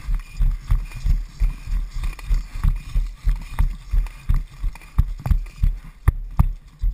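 Running footsteps on dry desert dirt and gravel, about three heavy footfalls a second, heard as thumps through a head-mounted camera. Two sharp clicks come near the end.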